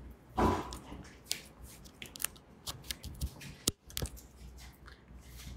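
Scattered light clicks and taps of small objects being handled, irregular and unevenly spaced, with a soft louder bump about half a second in.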